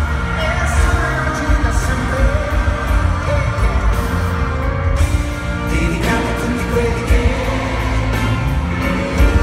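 Live pop-rock band playing loudly with heavy bass while a male lead singer sings into a handheld microphone, picked up from among the audience in a reverberant arena.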